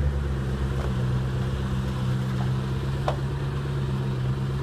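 Koenigsegg One:1's twin-turbo V8 idling steadily, with one brief sharp click about three seconds in.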